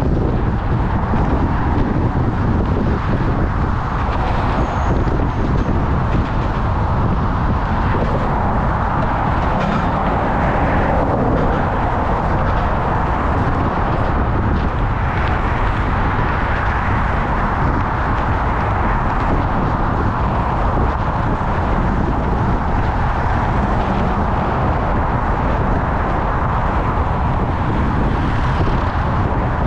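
Steady road traffic noise mixed with heavy wind rumble on the microphone of a camera riding on a moving bicycle, with no distinct events.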